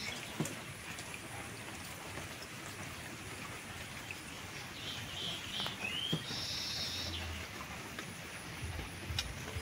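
Steady rain falling outdoors, with a bird calling once about six seconds in: a short rising note followed by a buzzy, higher note lasting about a second.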